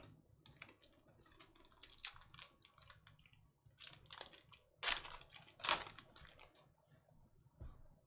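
Trading cards being handled and slid across one another: a quick run of light clicks and rustles, with two louder scrapes about five and six seconds in.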